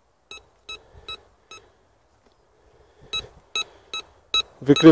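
Bounty Hunter Land Star metal detector beeping as its coil sweeps over a coin buried 31 cm deep: the detector is reacting to the target. There are two runs of four short beeps, about two or three a second, with a pause between them.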